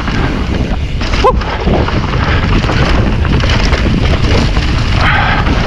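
Mountain bike riding fast down a rough trail: wind buffeting the camera microphone over a steady rattle and rumble from the bike and tyres, with one brief squeak about a second in.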